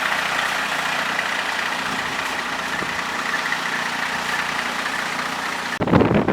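A large engine idles steadily, with a faint high whine held over it. Near the end it cuts off abruptly and gives way to gusts of wind buffeting the microphone.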